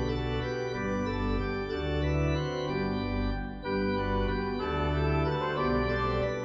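Pipe organ playing slow, sustained chords, the bass note changing every second or so, with a short dip in the sound about three and a half seconds in.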